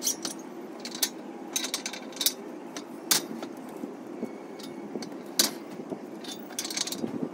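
Irregular metal clinks and clanks as weight plates are slid off a barbell, 10 lb from each side, for a drop set, over a steady low hum.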